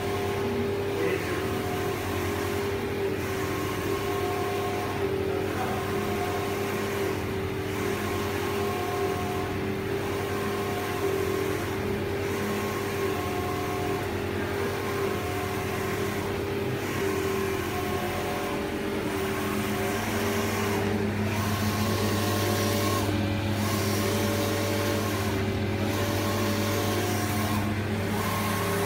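Digital belt textile printer running: the print-head carriage motor whirring as the carriage shuttles back and forth over the fabric, over a steady machine hum. The sound shifts at an even pace, about once every two seconds, as the carriage reverses.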